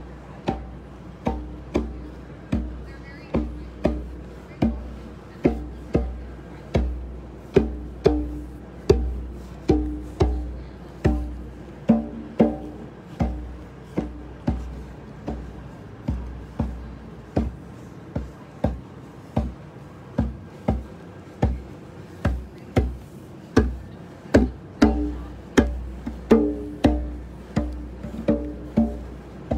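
Music with a steady beat: sharp plucked or struck notes about one and a half a second over deep bass notes. The bass drops out for several seconds past the middle, then returns.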